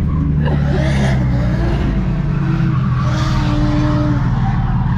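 Ford Falcon drift car's engine held at high revs while its tyres skid and squeal, in surges about a second in and again from about three seconds in.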